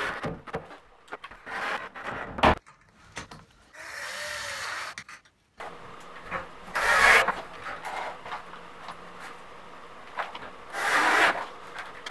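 Work noises at metal stud framing: a run of sharp clicks and knocks in the first few seconds, then two short scraping rubs about seven and eleven seconds in.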